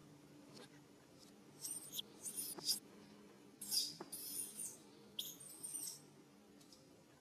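Newborn macaque infant giving high-pitched squealing cries in about four short bouts: the baby is distressed.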